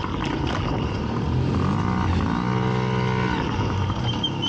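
Small dirt bike engine running under throttle, its pitch held steady, then dipping and rising again twice as the throttle is rolled off and back on.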